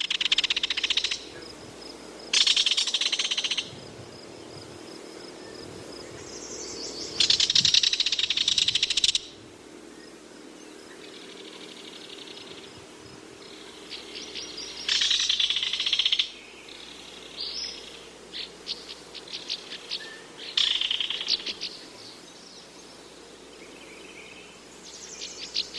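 Belted kingfisher giving its dry, rattling call: repeated rattles of one to two seconds each, several seconds apart, with a few shorter broken rattles in between.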